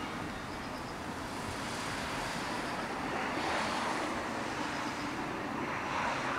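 Steady outdoor traffic noise, a continuous rumble and hiss that swells a little twice as vehicles go by.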